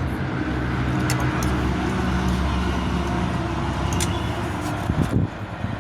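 Steady low mechanical hum, with a few faint clicks and a short cluster of knocks about five seconds in.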